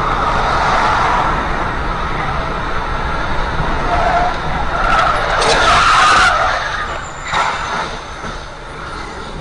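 Car tyres skidding on the road over steady traffic noise. It is loudest about five to six seconds in, with another short loud burst about seven seconds in.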